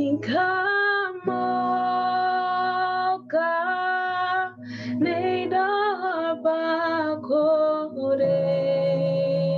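A woman singing a slow worship song in long held notes, in several phrases with short breaks, accompanied by sustained keyboard chords.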